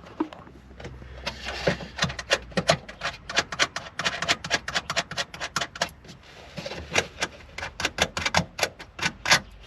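A long run of sharp, irregular clicks, several a second, as the nuts holding a car's tail light are undone with a hand tool.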